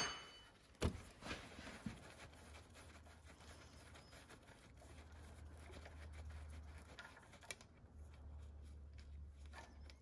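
A low steady hum with a few faint clicks and taps of hand tool work, the sharpest about a second in, as a wrench undoes the BMW E46 engine's oil-line bolt at the oil filter housing.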